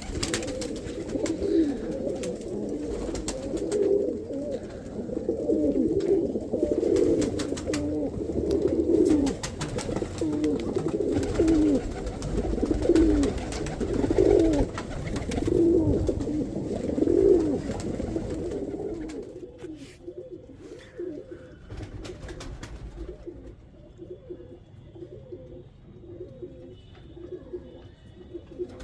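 Rampuri pigeon cooing over and over in low, rolling coos, loud for about the first two-thirds and then fainter. Scattered sharp clicks sound through the louder part.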